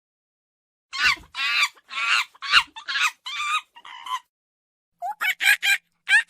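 Animal calls in quick succession, short pitched cries repeated several times a second, starting about a second in; after a brief pause near the end, a faster, more regular series of short calls begins.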